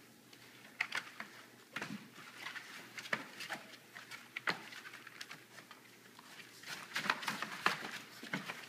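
A litter of four-week-old pit bull puppies wrestling on wood shavings in a plastic pool: irregular rustling, pattering and scratching of paws and claws, with short squeaks and yips.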